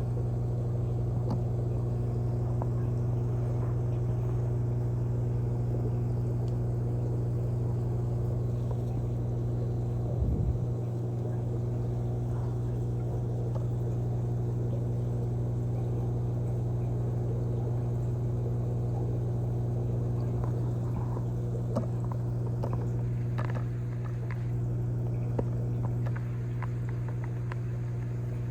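Steady low electrical hum of running aquarium equipment, with one short thump about ten seconds in and a few faint ticks near the end.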